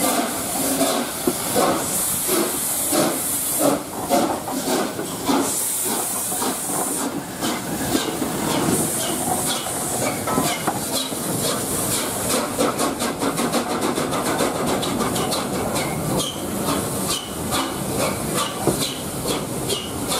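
The three-cylinder steam locomotive of LNER A3 'Flying Scotsman' pulling away under power: hissing steam and chuffing exhaust beats that quicken as it gathers speed. Its carriages then roll past, their wheels clicking rapidly over the rail joints.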